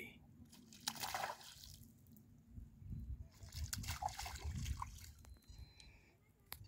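Hooked carp splashing at the water's surface while being played on a rod, a burst of splashing about a second in and more a few seconds later.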